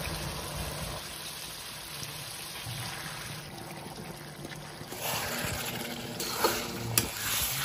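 Masala gravy bubbling and sizzling in a metal kadai as raw pork pieces are dropped in by hand. It grows louder after about five seconds, with a few sharp clicks of a spatula against the pan near the end.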